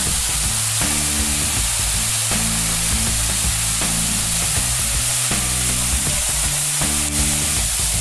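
Waterfall heard from right beneath it: a loud, steady hiss of falling water and spray, with background music of low held notes underneath.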